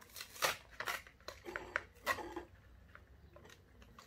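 Clear plastic blister packaging of a small die-cast toy car being pried open by hand. A quick run of sharp crackles and clicks of stiff plastic comes in the first two seconds or so, then only faint handling noises.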